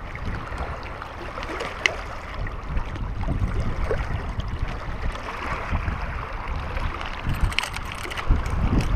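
Small waves lapping and washing against a rocky shoreline, with wind buffeting the microphone as a low rumble, and a couple of faint clicks.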